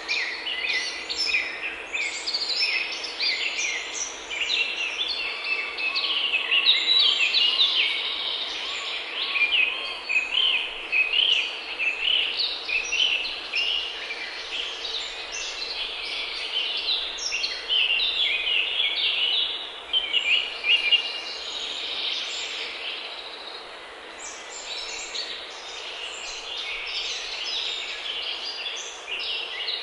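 Many songbirds singing at once: a dense, unbroken chorus of overlapping chirps and trills. A faint steady hum sits underneath.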